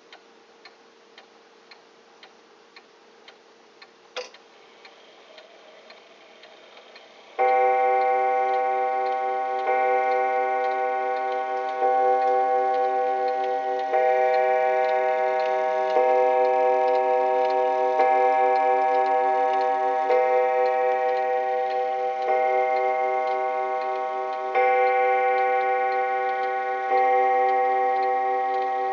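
Kienzle pendulum wall clock ticking softly, with a single sharper click about four seconds in. About seven seconds in it begins striking eleven o'clock: deep, resonant, cathedral-like strokes about every two seconds, each ringing on into the next.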